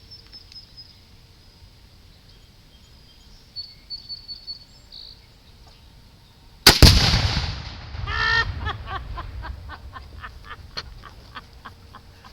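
A single .30-06 M1 Garand rifle shot setting off a Tannerite exploding target at about 75 yards: one sharp crack merged with a deep boom that rumbles away over a second or more. Right after, poultry start calling in a quick series of short squawks.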